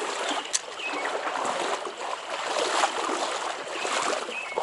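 Trout stream water rushing and splashing close by, with a sharp click about half a second in.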